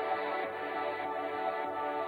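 Background music: a soft electronic track with sustained tones and a gentle pulse.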